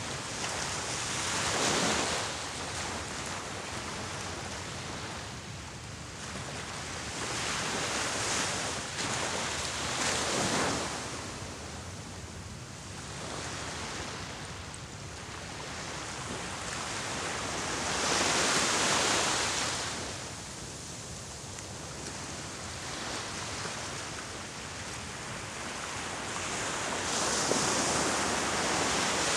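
Small waves breaking on a beach: a wash of surf that swells up about five times and falls back between breakers.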